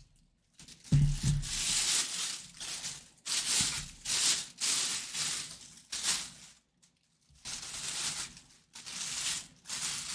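Clear plastic bag crinkling and rustling in repeated bursts as it is pulled off a full-size football helmet, with a brief low thud about a second in.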